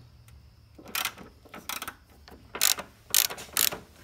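Socket ratchet on an extension clicking in several short bursts as a 10 mm bolt on the airbox is worked loose.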